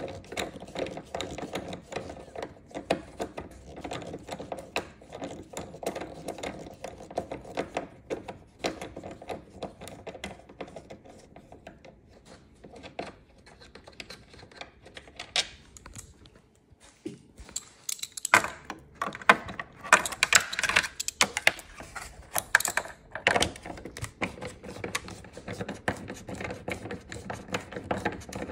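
Hand ratchet and socket clicking in quick runs as 8mm screws are undone. It goes quiet for a few seconds past the middle, then louder clatter and knocks follow for several seconds before the clicking resumes.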